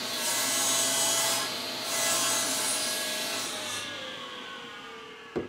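Table saw ripping a thin 1/16-inch strip off the edge of a plywood piece, the blade's cutting hiss coming and going over the motor's steady whine. About four seconds in the cutting stops and the saw's pitch falls as it winds down, with a short knock near the end.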